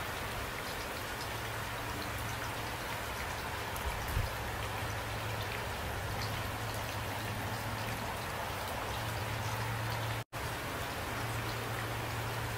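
Steady rain falling, with scattered individual drops striking close by, over a steady low hum. The sound cuts out completely for a split second about ten seconds in.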